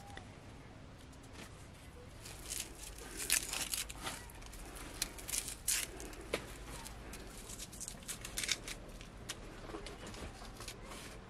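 A knife peeling the dry skin off an onion: crisp papery crackles and scrapes in quick clusters, thickest from about two to nine seconds in.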